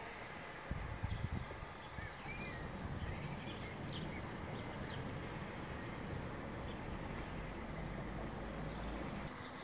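Steady outdoor background noise with a low rumble, and small birds chirping several times over the first few seconds.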